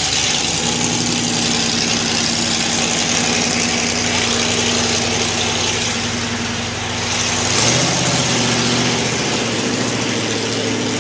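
Bigfoot 1 monster truck's engine running steadily as the truck drives off, with a brief rise in revs about eight seconds in.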